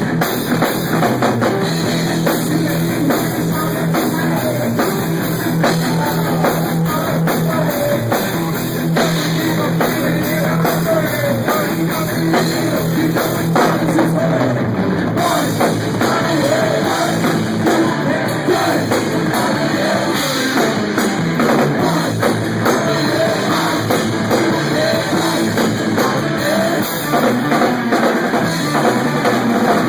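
Heavy metal band playing: distorted electric guitars riffing over a drum kit.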